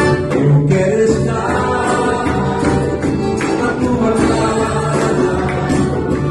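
Worship music: a band playing with steady percussion, and singing.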